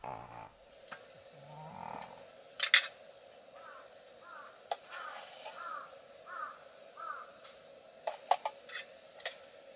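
A crow cawing six times in quick succession over a faint steady hum, with a few sharp clicks and clinks around it.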